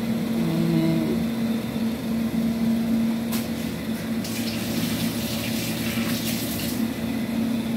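Noodles and a fried egg sizzling in a pan on a gas stove, a hissing fry that swells for a couple of seconds past the middle, over a steady low hum.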